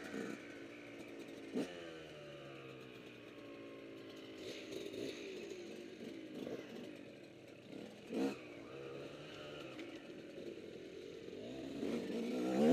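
A dirt bike engine running on the trail, its pitch rising and falling as the throttle is worked, and revving up louder near the end. Two brief sharp knocks come through, about a second and a half in and again around eight seconds in.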